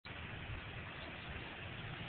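Steady background noise with a low rumble and no distinct events, picked up on a mobile phone microphone.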